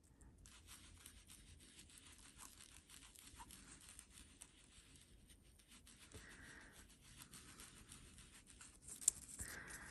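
Faint, quick scrubbing of an ink applicator rubbed over paper through a stencil, a little louder about six seconds in and again near the end.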